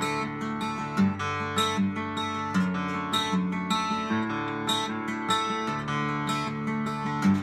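Solo acoustic guitar played fingerstyle in D-A-D-E-A-E tuning: plucked melody notes ringing over bass notes that change about every second.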